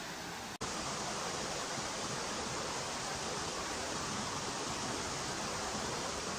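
Steady rushing noise with no distinct events, cut off for an instant about half a second in and then carrying on slightly louder.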